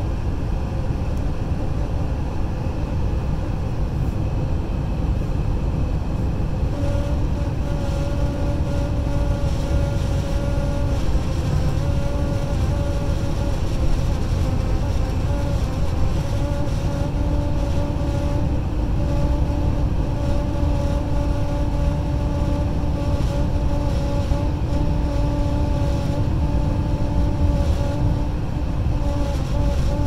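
Inside the cab of a 2019 Honda Ridgeline at highway speed: steady road and wind rumble with a buzzing hum on top that fades in and out, a lower-pitched layer joining about a third of the way through and growing stronger. The buzz is caused by wind, according to the owner.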